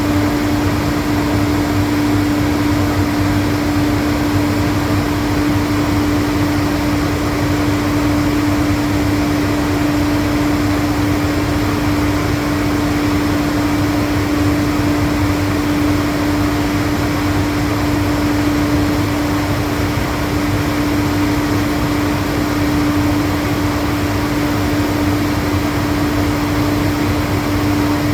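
Atlas Copco GA 15 FF rotary screw air compressor running steadily: an unchanging hum with one strong even tone over a broad mechanical rush of motor, cooling fan and air end.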